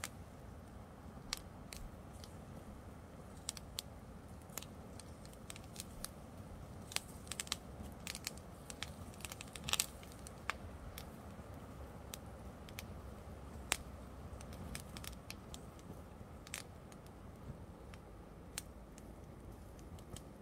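Open fire crackling as a hanging wedding dress and the brush beneath it burn: irregular sharp pops and snaps, busiest about halfway through, over a low steady rumble.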